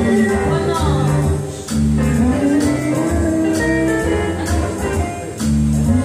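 Live music: a sung melody with long held, bending notes over guitar accompaniment, with light percussion ticking about once a second.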